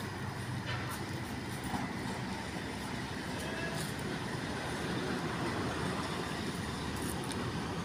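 Steady low rumble of a truck engine running at idle.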